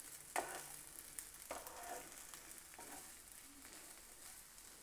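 Faint, steady sizzle of fried corn and onion tossing in a hot pan, with a couple of light stirring knocks about half a second and a second and a half in.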